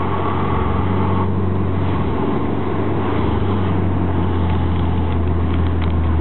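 Alfa Romeo 156 Twin Spark four-cylinder engine running steadily through a T.Welding aftermarket muffler, with a low, even exhaust drone.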